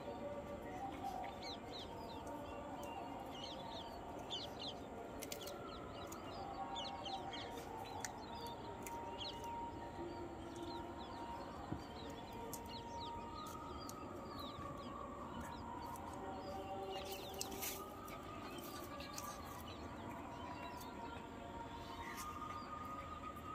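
Birds chirping steadily in the background, with a few faint crunching clicks as a small dog chews a dry areca palm frond stalk.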